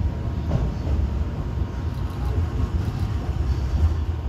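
E233-8000 series electric train pulling slowly into a station platform, a steady low rumble of wheels on rail as it slows for its stop.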